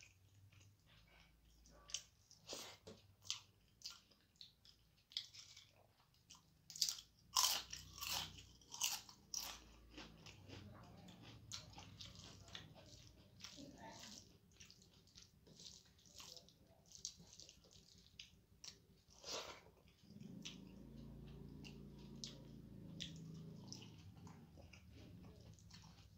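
Close-miked eating sounds: crisp, crunchy bites and chewing, loudest and thickest a few seconds in, then softer, sparser chewing.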